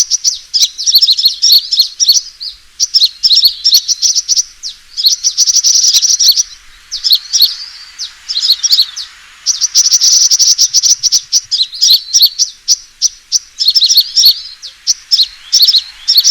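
Sunbird calls used as a trapping lure: rapid, high-pitched twittering chirps in quick bursts, each a second or two long with brief gaps between. This is the agitated fighting call that draws rival birds in.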